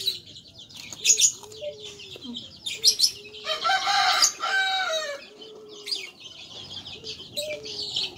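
A rooster crowing once, a long call beginning about three and a half seconds in and lasting a second and a half, over continual bird chirping and a run of short low calls repeating every second or so.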